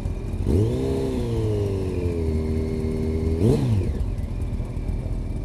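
Motorcycle engine revving up about half a second in, holding and easing off, then a quick rev up and back down a little past three seconds, over steady wind and road noise on a helmet-mounted microphone.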